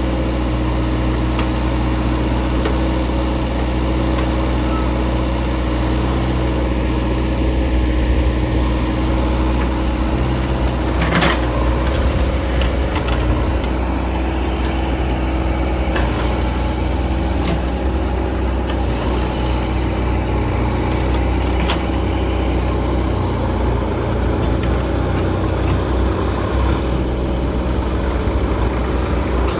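Diesel engines of a backhoe loader and tractor running steadily as mud is loaded, with a few short sharp knocks.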